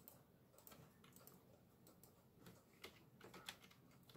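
Faint, irregular clicks of keys on a computer keyboard as a word is typed.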